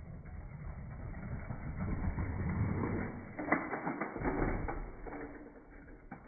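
Two small toy cars rolling down a cardboard ramp onto a concrete floor: a building rumble of their wheels, then a sharp clatter about three and a half seconds in as they knock into the wall and each other, and a fading rumble after.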